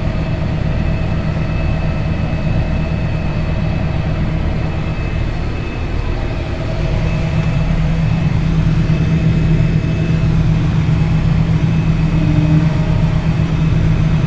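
Farm tractor's diesel engine running steadily, heard close. It grows louder and stronger about seven seconds in and holds there.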